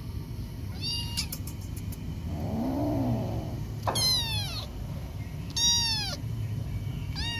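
Kitten meowing: four short, high cries, each falling in pitch.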